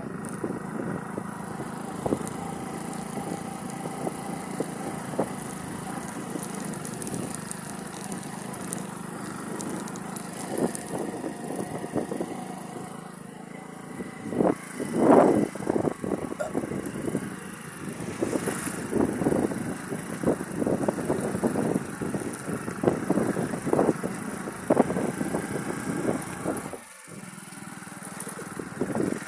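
Motorcycle riding along a dirt forest track: steady engine and road noise, with irregular louder buffets on the microphone from about halfway through.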